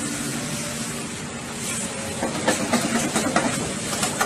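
A heavy machine or vehicle running with a steady noise and a faint low hum; irregular knocks and rattles set in about two seconds in.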